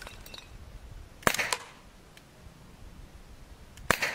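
Umarex Beretta 92 FS CO2 air pistol fired twice, about two and a half seconds apart. Each shot is a sharp crack with a short ring after it.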